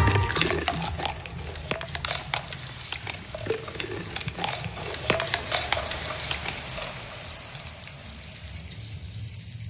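Dense, irregular crackling and clicking over a low, steady rumble; the crackles thin out and the sound grows quieter near the end.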